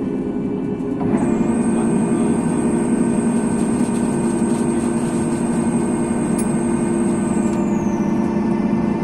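Boeing 737 MAX 8 cabin noise: a steady engine hum with several held tones. About a second in it steps up louder and a high whine comes in, holds steady, then glides down in pitch near the end.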